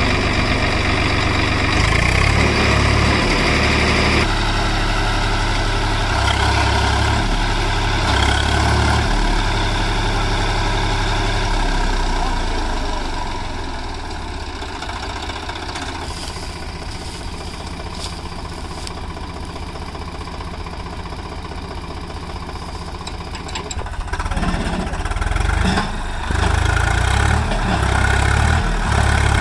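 Tractor's diesel engine running hard with a load of sugarcane behind it. It eases back about halfway through and is pushed hard again near the end.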